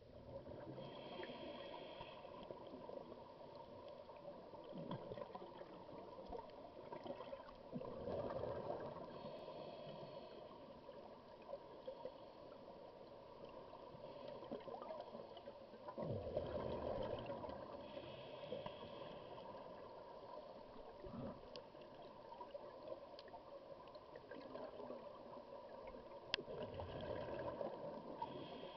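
Muffled underwater sound of scuba breathing through a regulator, with a bubbling rush of exhaled air about every eight or nine seconds over a faint steady hum.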